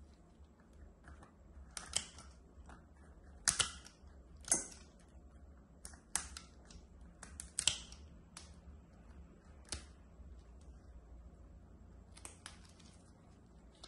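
Heavy nippers snipping and crunching through a thick, crumbly overgrown toenail: a series of sharp, irregular clicks, the loudest about three to five seconds in and again near eight seconds, fainter toward the end.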